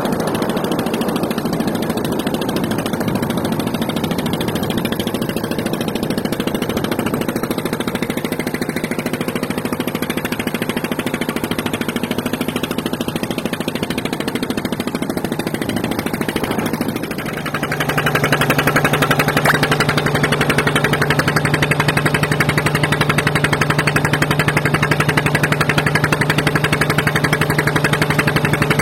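An engine running steadily. About 17 seconds in it dips briefly, then settles into a louder, steadier hum.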